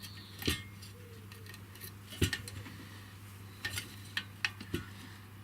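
A handful of light, irregular metallic clicks and taps as tools work on the solder pot's internal wiring, over a steady low hum.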